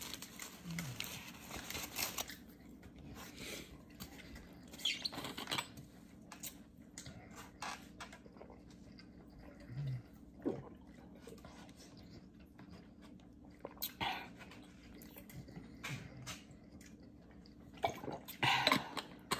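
Quiet eating and drinking sounds: scattered small clicks and mouth noises of chewing, and a few swallows from a water bottle around the middle. A faint steady hum runs underneath.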